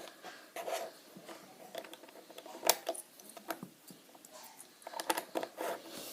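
Plastic Lego bricks clicking and clattering as they are handled and pressed together: a scatter of small, sharp clicks, irregularly spaced, a little louder about three seconds in and again near five seconds.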